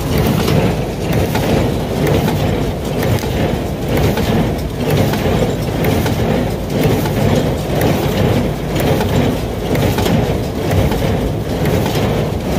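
Massey Ferguson 124 square baler running under a tractor's power, its mechanism clattering and working in a steady rhythm of about one stroke a second over the tractor engine.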